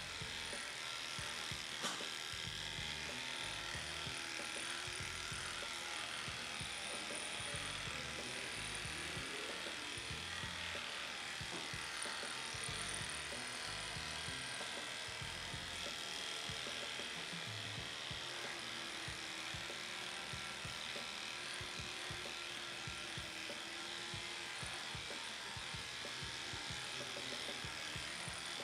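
Electric dog grooming clippers running steadily as they shave a matted coat down close to the skin, with one sharp click about two seconds in.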